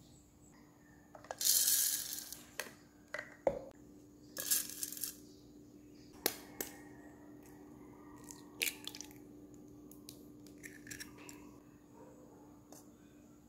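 Rolled oats scooped and poured into a plastic blender cup, heard as two short rattling pours, among scattered clicks and knocks of measuring cups and utensils against the cup.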